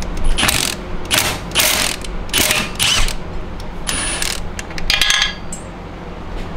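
Hand ratchet clicking in about six short spells with pauses between, backing out an E-Torx bolt on a transmission case.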